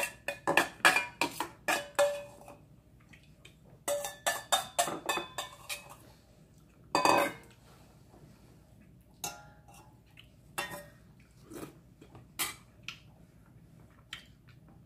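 Metal spoon clinking and scraping against a stainless steel bowl: quick runs of clinks in the first couple of seconds and again around four to five seconds in, then a few scattered single clinks.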